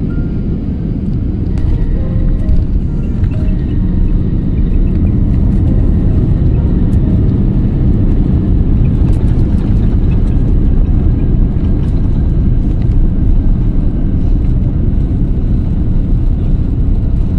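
Jet airliner's cabin noise on the runway after landing: a loud, steady rumble of the engines and wheels, heard from a window seat, growing louder about a second and a half in.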